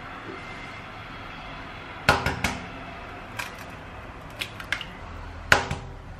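Eggs tapped and cracked against the rim of a stainless steel mixing bowl: a quick cluster of three sharp clicks about two seconds in, a few lighter clicks after, and one loud tap with a brief metallic ring near the end. A steady low hiss runs underneath.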